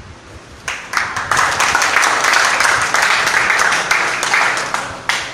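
Audience applauding, starting just under a second in and stopping near the end.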